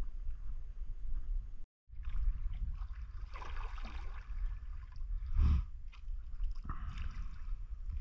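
Kayak paddling on a pond: water sloshing and gurgling around the paddle and hull, a few soft swells of splashing over a steady low rumble. The sound cuts out completely for a moment about two seconds in.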